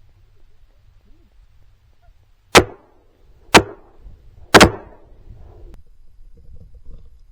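Three shotgun shots fired in quick succession about a second apart, each sharp and loud with a short echoing tail.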